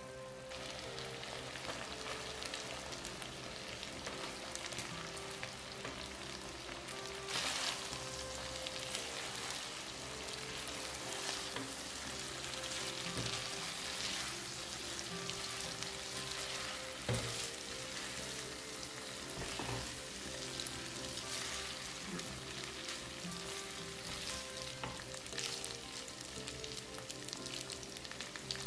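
Shrimp and spaghetti sizzling in a butter-garlic sauce in a nonstick pan, with the clicks and scrapes of a spatula and tongs tossing them. The sizzling flares up louder about seven seconds in.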